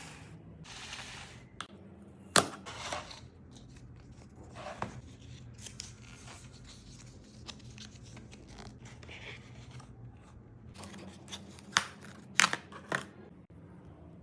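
Packaging being handled and opened: rustling and tearing, with a few sharp clicks or snaps, the loudest about two seconds in and several close together near the end.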